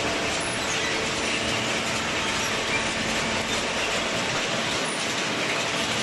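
The steel chain-plate infeed conveyor of a horizontal cardboard baler running, a steady metallic rattle with a faint machine hum underneath.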